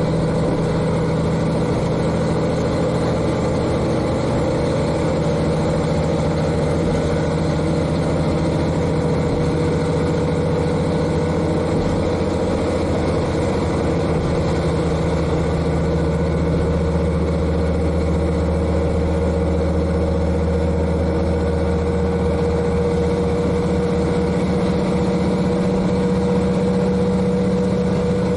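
KiHa 40 diesel railcar's N-DMF13HZI six-cylinder diesel engine running steadily, heard from inside the car directly above the engine. Its pitch rises slightly about halfway through.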